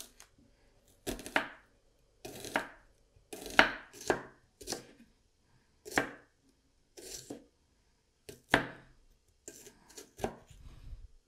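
Kitchen knife slicing red onions on a wooden cutting board: a series of irregular knocks as the blade cuts through and strikes the board, about one or two a second, some in quick pairs.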